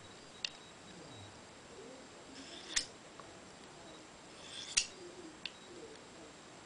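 Paring knife blade drawn along a steel honing rod: two short scraping strokes about two seconds apart, each swelling to a sharp metallic scrape as the blade runs off the steel, with a couple of faint clicks between. These are honing passes on either side of the blade to realign its edge.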